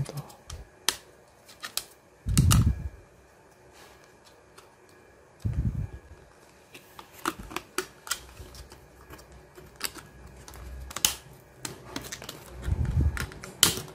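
Irregular small clicks and taps with three short, dull thumps, about two and a half, six and thirteen seconds in: hands handling small objects such as a RAM module's packaging.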